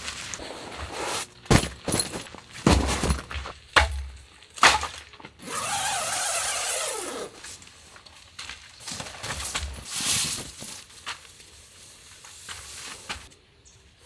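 Camping gear being handled and set down on a tent floor: a run of knocks, thumps and fabric rustles, with a longer scraping rasp about halfway through.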